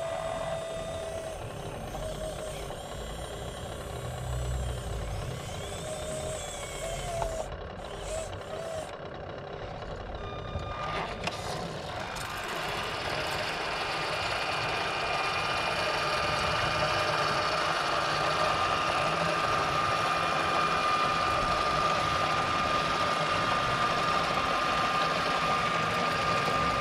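Radio-controlled model truck's electric motors whining, with a few short beeping tones in the first half. The whine gets louder and steadier over the second half as the truck comes up close.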